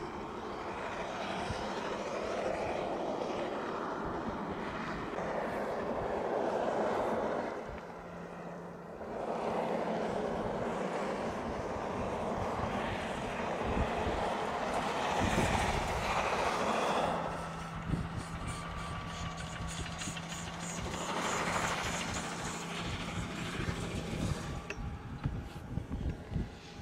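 Railway rotary snow blower at work clearing the line, a rushing roar of machinery and thrown snow that swells and fades, dipping briefly about a third of the way in. A low steady hum joins it about two-thirds of the way through.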